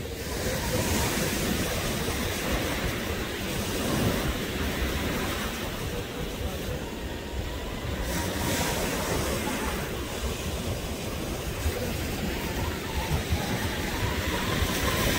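Ocean surf breaking and washing up the beach, swelling a few times, with wind rumbling on the microphone.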